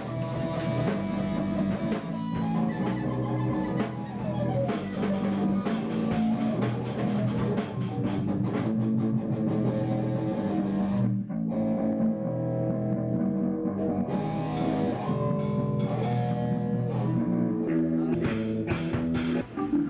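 Rock band rehearsing live: electric guitars and a drum kit playing together, with a short break about eleven seconds in.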